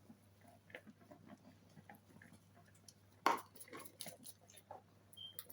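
Kitchen handling noises: light scattered clicks and taps, then a louder clatter of a utensil knocking on a pot a little over three seconds in.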